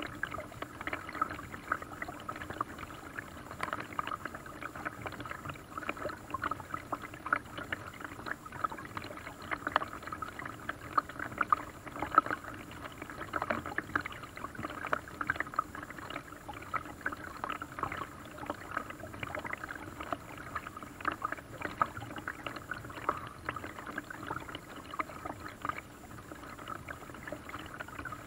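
Paddling a small boat on a lake: paddle blades dipping and water splashing and lapping against the hull in a steady, irregular patter of small splashes.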